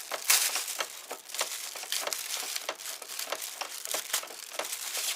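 Packaging crinkling and rustling as it is handled, with many irregular small clicks and knocks.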